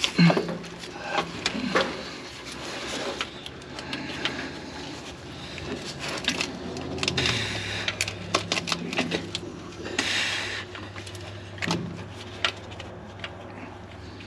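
Scattered metal clicks, knocks and scrapes as a truck starter motor and tools are handled and worked into place by hand, over a low steady hum that drops in pitch about seven seconds in.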